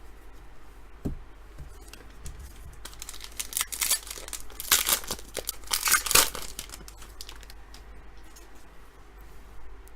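Crinkling and tearing of a trading-card pack's wrapper being opened, in several loud rustling bursts, the biggest about halfway through.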